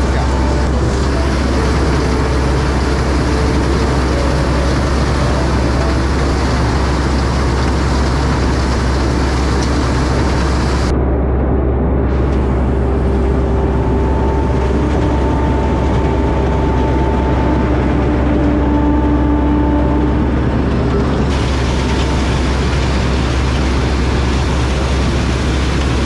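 Rice combine harvester running steadily while cutting paddy: a loud, even engine-and-machinery drone with faint steady whines from the moving parts.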